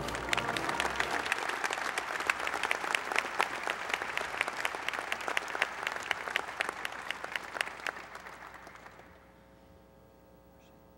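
Banquet audience applauding, a dense patter of many hands that thins out and stops about nine seconds in, leaving a faint electrical hum.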